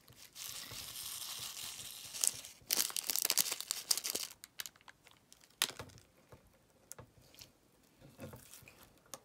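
A small plastic packet of candy sprinkles crinkling as it is opened and handled, then a denser crackle for a second or two as the sprinkles are poured out onto slime. A few scattered small clicks follow.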